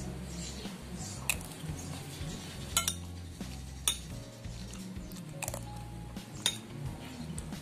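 Cutlery clinking against a dish about six times, in short separate strikes, while eating noodles and rice, over steady background music.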